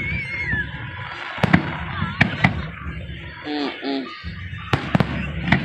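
Fireworks going off: several sharp bangs, some in quick pairs, over a low rumble, with short calls from voices in between.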